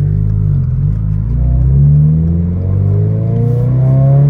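2022 Toyota GR86's 2.4-litre flat-four boxer engine heard through an aftermarket cat-back exhaust, pulling under throttle. Its pitch climbs, eases off briefly a little past halfway, then climbs again.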